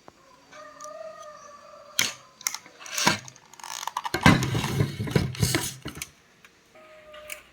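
Clicks and clattering of small hard objects being handled: a few separate knocks, then a dense rattle of clatter for about two seconds in the middle.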